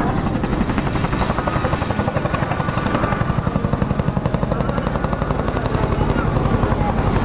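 CH-47JA Chinook tandem-rotor helicopter flying low and close, its rotor blades making a loud, rapid, steady beat over the turbine noise.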